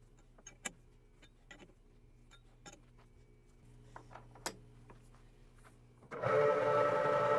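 Light metallic clicks and taps as the lathe's quick-change tool post is handled, then about six seconds in the Leblond lathe comes in suddenly, running with a steady gear whine.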